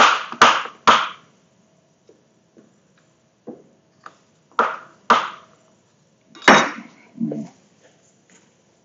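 Kitchen knife chopping through butter onto a cutting board: three quick, sharp knocks at the start, two more about halfway, and a louder knock with a short ring a little later.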